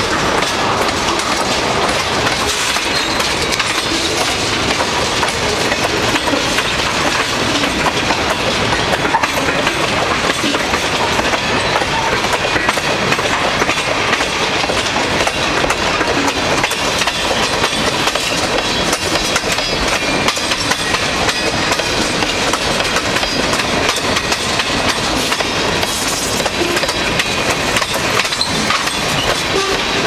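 Freight tank-car wheels hammering over the joints of jointed rail as the train rolls past: a dense, steady clickety-clack of wheel strikes with rail rumble.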